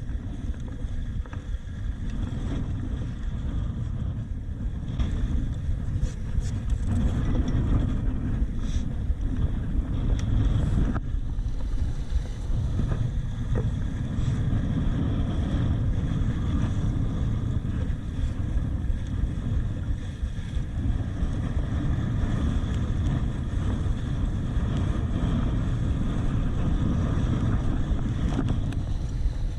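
Strong wind buffeting the microphone in a deep, steady rumble, with the hiss and slap of water from a Laser dinghy sailing in heavy wind.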